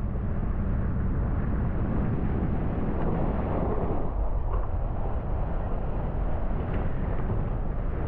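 Car driving along a dirt road, heard from a camera mounted on its outside: a steady rumble of tyres and engine with wind on the microphone.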